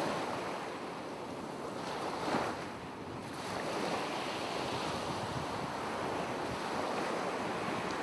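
Ocean waves washing in a steady surf hiss, swelling briefly a little over two seconds in.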